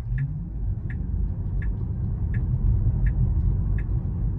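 Tesla Model 3 Performance pulling away from a stop, heard inside the cabin: a low road and tyre rumble that builds as the car gathers speed, with a short rising whine near the start. Over it, an even tick about every three quarters of a second from the turn signal.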